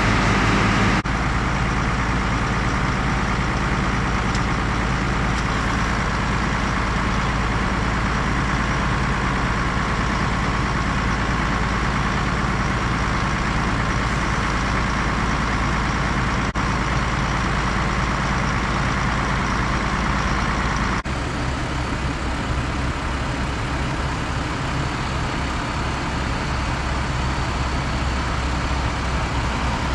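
Heavy farm machinery engine running steadily. The sound shifts abruptly about a second in and again about twenty-one seconds in, with a deeper hum after the second change.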